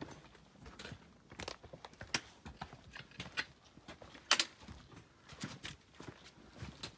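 Footsteps of a hiker walking over dry fallen leaves and stones, each step a short crunching rustle at an uneven pace of about one or two a second, the loudest about four seconds in.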